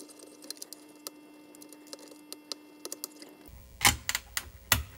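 Small clicks and scrapes of a chip's pins being pushed into its socket on a Commodore 64 circuit board, with a cluster of louder sharp clicks near the end as it is pressed home. The chip is a SID chip with a bent pin that has just been straightened.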